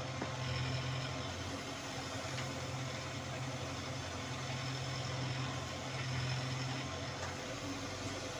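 Case 770 backhoe loader's diesel engine running steadily while the backhoe arm digs, the engine note rising and easing slightly as the hydraulics work.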